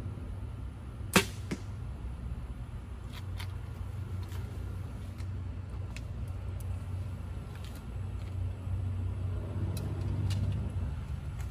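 Compound bow shot: the string releases with one sharp snap about a second in, followed about a third of a second later by a fainter knock.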